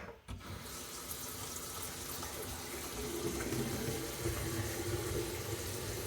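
Bathroom sink faucet running steadily into the basin, turned on just as the sound begins, to test a newly fitted push-button sink drain for leaks.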